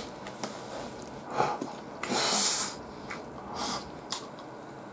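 Loud, sharp breath through the nose about two seconds in, lasting under a second, and a shorter one about a second later, from a man eating. A few light clicks of chopsticks against an aluminium bento tray.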